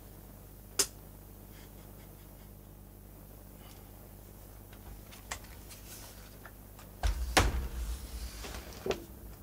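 Handling noise from an opened Grundig 2x4 Super Video 2000 recorder being worked on and shifted on the bench. A single sharp click comes about a second in and a few light taps follow later. Near the end come a couple of seconds of heavy bumps and clatter as the machine is moved, over a faint steady low hum.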